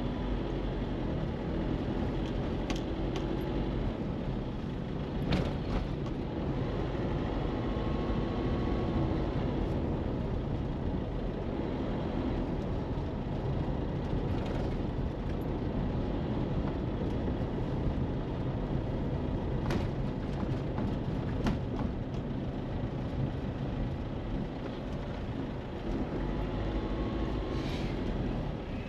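Steady engine and road rumble of a car driving in city traffic, with a few short sharp clicks or knocks here and there.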